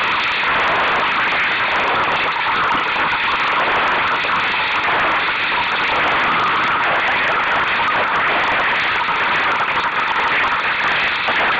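Steady rushing of wind and water around a Solo sailing dinghy under way on choppy water, an unbroken noise with no distinct knocks or tones.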